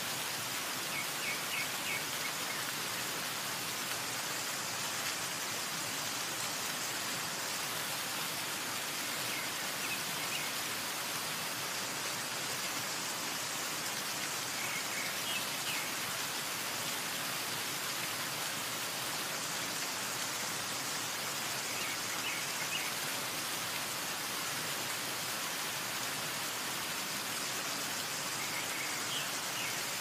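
Steady, rain-like hiss and spatter of water dripping and falling in many thin streams down the rock face of the Umbrella waterfall. A few short, high chirps sound now and then.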